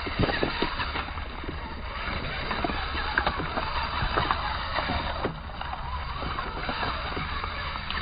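RC rock crawler picking its way over river stones, its tyres and chassis knocking and clattering irregularly on the rocks over steady background noise.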